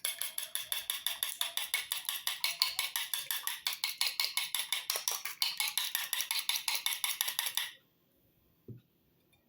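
A fork beating eggs in a bowl: quick, even strokes clicking against the bowl about six or seven times a second, stopping abruptly about three quarters of the way through, followed by one soft low thump.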